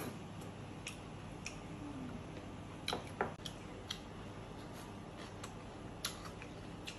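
Someone eating cooked snails with a toothpick: scattered light clicks and taps of the toothpick and snail shells, with two sharper clicks close together about three seconds in.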